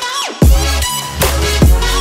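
Electronic background music with a steady beat and deep bass hits that slide down in pitch. The bass drops out briefly at the start, then comes back in.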